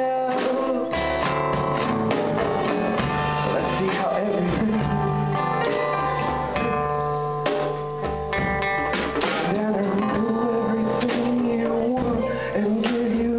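Live band playing: strummed acoustic guitar with a drum kit, running steadily without a break.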